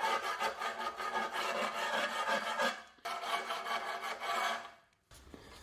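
Coarse file rasping back and forth along the freshly sawn edge of a thermal-concrete fireplace panel, deburring the cut-out. Two spells of quick strokes with a short break about three seconds in, stopping shortly before the end.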